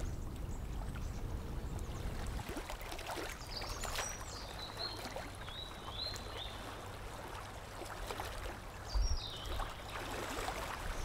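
Outdoor ambience: a steady low rumble with a few short, high bird chirps, a cluster in the middle and another near the end, and a soft low thump about nine seconds in.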